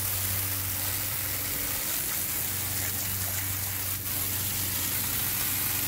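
Water from a hose spraying and splashing onto a fiberglass boat deck, a steady hiss, rinsing rust remover off the gel coat.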